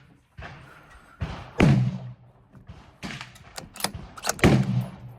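Gunshots on a rifle range: two loud shots about three seconds apart, with several fainter reports and sharp cracks between them, each followed by a short ringing tail.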